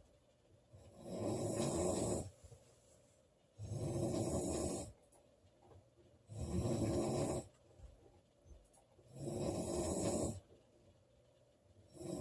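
A woman snoring loudly in an even rhythm: four snores, each a little over a second long, coming about every two and a half to three seconds, with a fifth starting right at the end.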